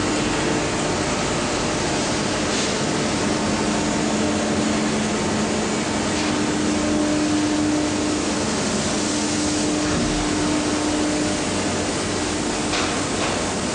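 Industrial laundry machinery running: a steady noisy roar with a hum underneath, and a couple of faint clicks near the end.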